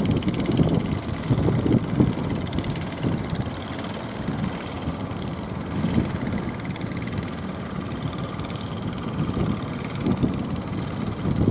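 Engine of an outrigger fishing boat running as it comes in toward the shore, mixed with wind buffeting the microphone in irregular gusts.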